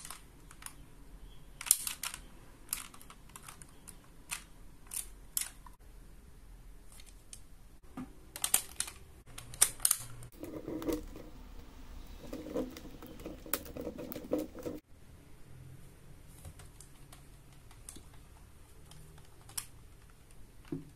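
Hard plastic clicking and handling noise from a Bandai DX Desire Driver toy belt being turned over and worked by hand: irregular sharp clicks, with a few seconds of rubbing and scraping in the middle that stops abruptly.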